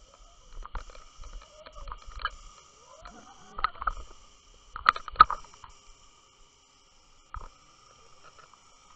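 Underwater sound picked up by a submerged camera rig on the seabed. A steady high whine runs throughout, with irregular knocks and clicks, the loudest two about five seconds in, over low rumbling in the first half.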